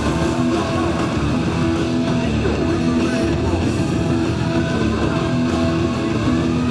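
Rock music with guitar, with a long rising sweep about every three seconds.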